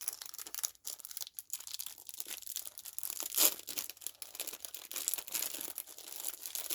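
A snack wrapper being torn open and crinkled, a busy run of crackling with one loud tear or crunch about three and a half seconds in.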